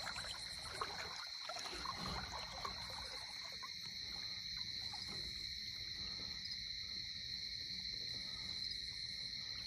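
Steady night chorus of crickets, a constant high-pitched trill, with faint rustles and knocks in the first couple of seconds.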